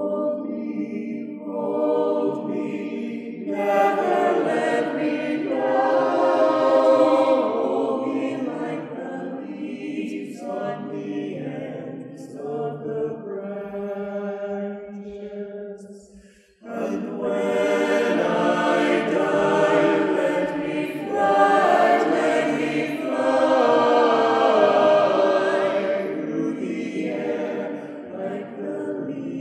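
Mixed choir of men's and women's voices singing a cappella, with a short break about halfway through before the voices come back in together.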